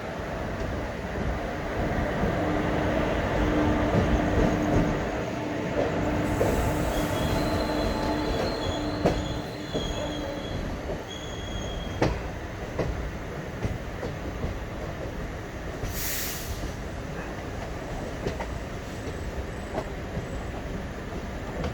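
ICF passenger coach running along the track: a steady rumble with occasional sharp knocks of the wheels over rail joints. A high wheel squeal comes and goes through the middle, and a brief high hiss comes about two-thirds of the way through.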